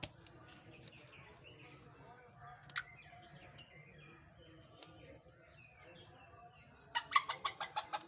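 Hens in a backyard pen giving faint calls and chirps, then a quick run of loud clucks near the end, about eight in a second.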